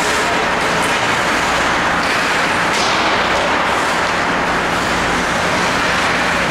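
Steady, even background noise of an ice hockey rink during play, with a couple of faint clicks.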